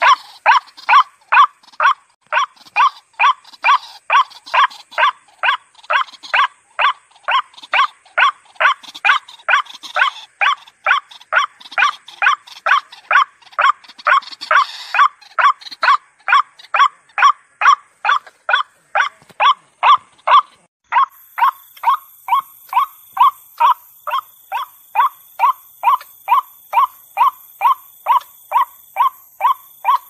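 White-breasted waterhen calling: a long, even series of short 'ruak' notes, about two a second. About two-thirds of the way through, a faint high whine comes in behind the calls.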